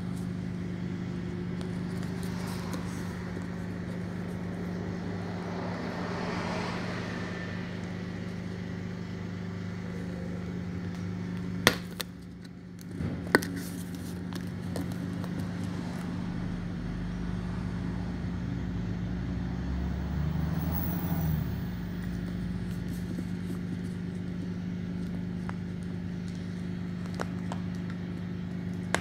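Inside a Hess electric bus: a steady drivetrain hum over road noise, with two sharp knocks about halfway through and a deeper rumble that builds for several seconds as the bus pulls away from a stop.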